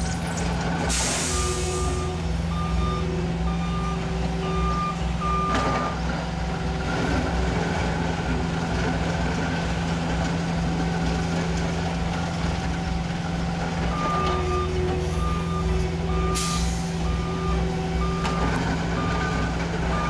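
Road-works machinery engine running steadily while a backup alarm beeps roughly twice a second in two spells, as a machine reverses. Two short bursts of hissing air, one about a second in and one near the end, like an air brake releasing.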